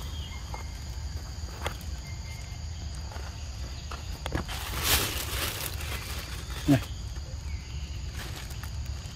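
Outdoor ambience with insects chirring steadily at a high pitch, a few light clicks, and a rustle about halfway through. Near the end comes a short, loud, low sound that falls in pitch.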